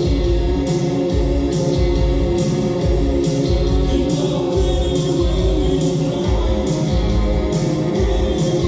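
Live band playing loud amplified music: a kick drum beating about twice a second with cymbal hits, over bass and electric guitar.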